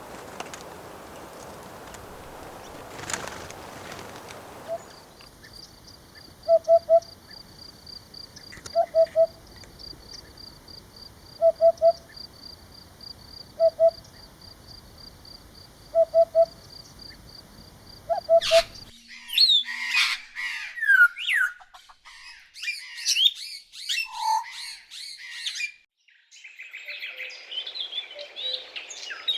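Birds calling and singing in several separate recordings. First comes a low two-note call repeated about every two seconds over a high, fast, even trill. Then a burst of varied chirps and whistles.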